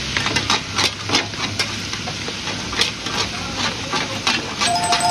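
Long metal spatula scraping and clanking against a steel karahi wok as mutton pieces are stirred, irregular strikes about two to three a second over a steady frying hiss.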